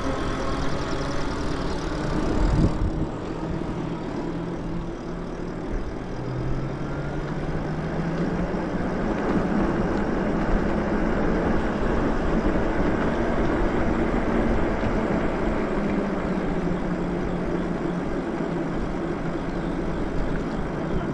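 Riding noise on an electric bike: wind and tyre rumble with the hub motor's hum, which rises in pitch from about six seconds in and slowly drops again later. A single thump comes about two and a half seconds in.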